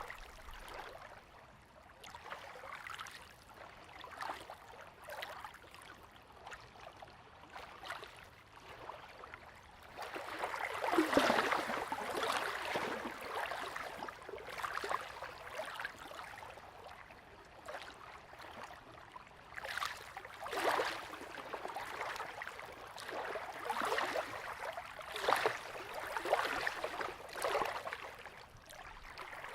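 Tiny waves lapping at the shore of a calm freshwater loch, close to the water's edge, in irregular soft splashes. The lapping is quieter at first and grows louder about ten seconds in.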